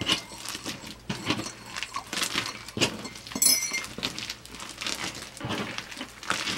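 Hands kneading and squishing pink floam slime, foam beads in clear glitter slime, making an irregular run of crackles, pops and sticky squelches. The slime has just had activator added and is still stringy as it is worked.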